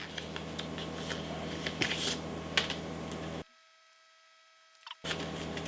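Light clicks and crinkles of plastic filter packaging being opened and handled, over a steady electrical hum. Around the middle the sound cuts out to near silence for about a second and a half, then the hum comes back.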